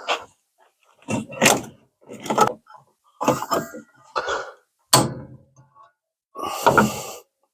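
Hammer blows on a hand impact driver, about one a second, as it tries to shock loose a seized screw. The last blow, near the end, rings on longer than the rest.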